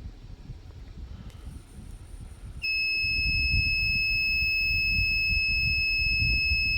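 Electronic buzzer on a homemade timer-alarm circuit switches on about two and a half seconds in and holds one steady high-pitched tone, signalling that the set time is up.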